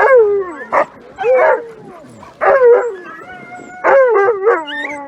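A sled dog howling in a run of wavering calls that slide down in pitch, about four in all, with a short yelp between the first two; the last call is the longest.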